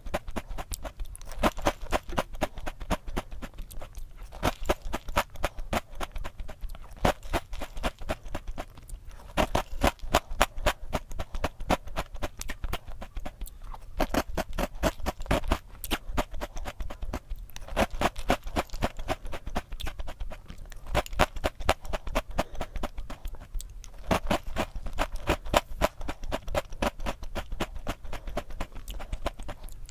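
Crunchy chocolate O-shaped cereal in milk being chewed, a rapid crackling crunch that comes in repeated bursts every two to three seconds with each spoonful.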